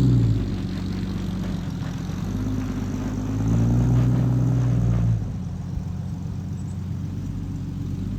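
Vehicle engine running, revving up for a couple of seconds about three seconds in, then dropping back to a lower steady run.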